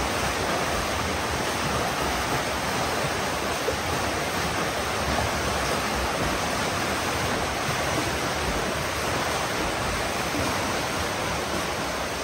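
Several swimmers splashing hard through a pool as they swim butterfly, a steady rush of churning water.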